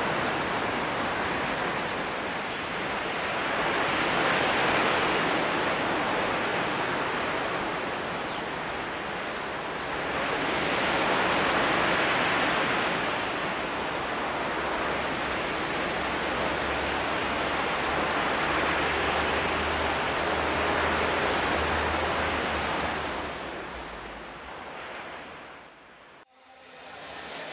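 Ocean surf, waves swelling and washing in about every seven seconds, with a low rumble under the later swells; it fades away near the end and cuts off briefly.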